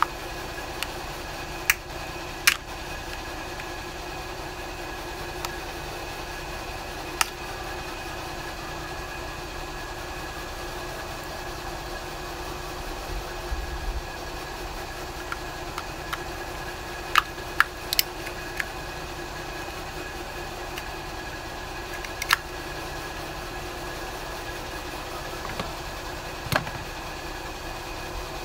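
Sharp, scattered clicks of a thin screwdriver prying at the housing of a small Mikuni diaphragm fuel pump, about eight in all, over a steady mechanical hum.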